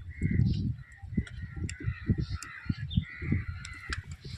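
Crows cawing repeatedly, harsh calls one after another, over irregular low knocks and rustling.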